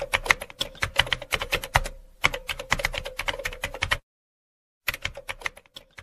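Typing sound effect laid under a caption that types itself onto the screen: rapid key clicks, about eight a second, with a break of about a second some four seconds in before the clicking resumes.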